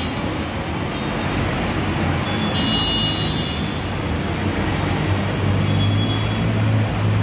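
Steady rush of rain and floodwater running down a street. A vehicle engine's low drone grows louder from about five seconds in, and a few short high beeps sound about three seconds in.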